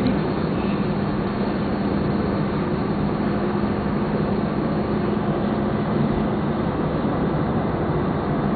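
Steady road noise inside a moving car at highway speed: tyre and engine drone with a constant low hum.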